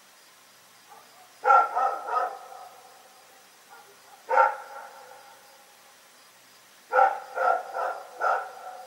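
A dog barking in three volleys: a quick run of three barks, a single bark, then four barks in a row.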